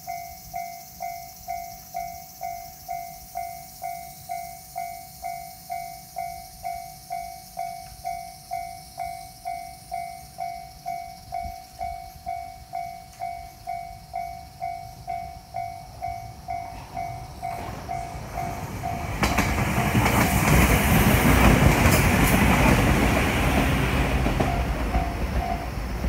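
Japanese level-crossing alarm ringing with a steady electronic ding, about two a second. About 18 seconds in, a Toyohashi Railway Atsumi Line train passes over the crossing with loud wheel and rail clatter, which is the loudest part, then fades near the end while the alarm keeps ringing underneath.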